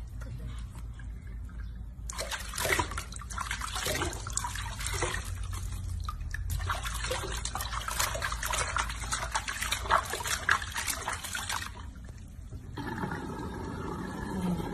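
Water splashing and sloshing in a sink as hands scoop it over a baby monkey and rub its wet fur, in irregular bursts that pause briefly about twelve seconds in.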